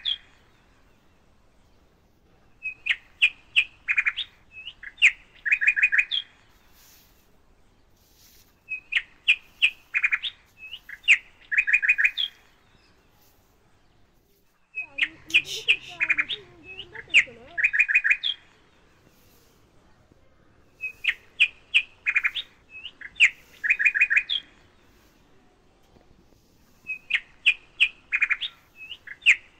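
Birds chirping: clusters of quick, high chirps that come back in much the same pattern about every six seconds, with a brief lower wavering sound in the middle.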